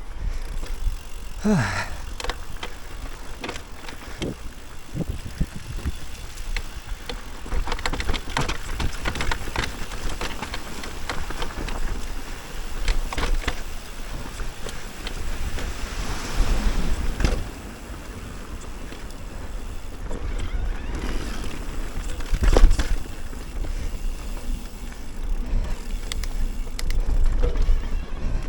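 Mountain bike clattering and rattling over a rough, muddy trail, with wind buffeting the microphone. There is a short falling squeal near the start and a hard knock about two-thirds of the way through.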